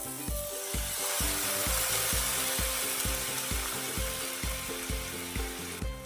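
Hot oil and sugar in a frying pan sizzling as liquid seasoning is poured over pan-fried sweet potato chunks. The sizzle starts just after the beginning, is loudest in the first few seconds, eases off and stops abruptly near the end. Background music with a steady beat plays underneath.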